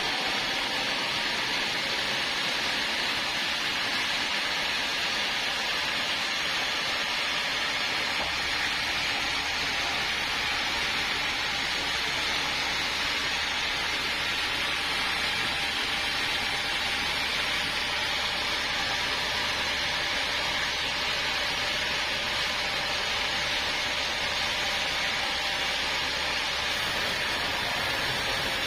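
Sawmill saw running with a steady, even hiss-like noise and no breaks.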